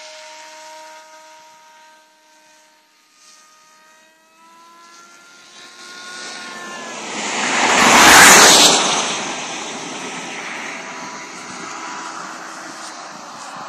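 Electric motor and propeller of a radio-controlled model airplane in flight: a steady whine that rises a little in pitch as the plane comes closer, swelling into a loud rushing pass about eight seconds in, then fading.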